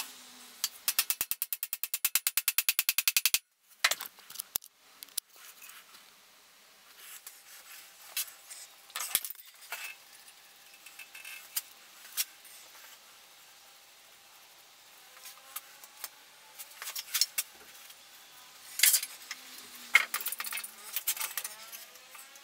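Workshop handling sounds during a dowel-and-glue assembly of 2x4 bench legs: a rapid run of clicks for a couple of seconds near the start, then scattered knocks and metallic clinks as the timber and clamps are moved and set.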